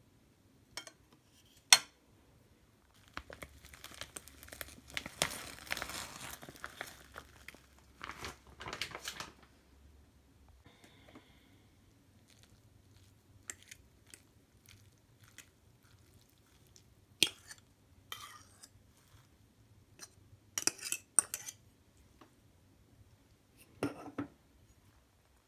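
Metal spoon scraping and tapping against a glass bowl while soft fruit is spooned in, with a few sharp clicks of spoon on glass (the loudest about two seconds in and near twenty-one seconds) and a longer stretch of scraping and rustling early on.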